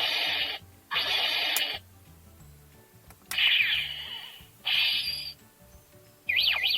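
Electronic transformation sound effects from a CSM Kamen Rider 1 Typhoon henshin belt's speaker: two short whooshing bursts, then falling sweeping chirps, another burst, and a fast warbling siren-like tone near the end.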